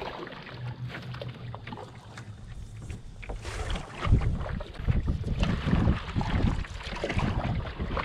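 Wind buffeting the microphone and choppy water slapping against an aluminium canoe's hull, with scattered small knocks and splashes as the canoe moves.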